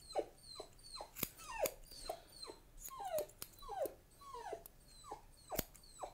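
Tibetan Terrier puppy whimpering in a string of short, falling whines, about two a second, as its ticklish feet are trimmed. Sharp clicks of grooming scissors snipping around the pads come in between.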